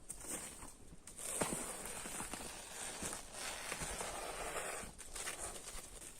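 Stretch wrap film pulled off its roll, a crackling rustle that starts about a second in and stops about five seconds in, with a few scattered knocks around it.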